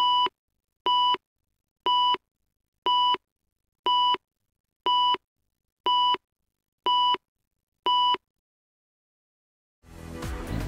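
Countdown-leader beeps on a broadcast tape: nine short, identical steady tones, one a second, marking the seconds of a count down from ten. The programme's opening theme music starts near the end.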